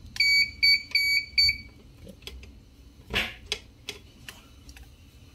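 Dahua DVR's built-in buzzer beeping four times in quick succession, short even beeps at one pitch, from a recorder that is powered on with no hard drive installed. Then a few scattered clicks and knocks as the Seagate Barracuda hard drive and its SATA cables are handled against the open DVR chassis.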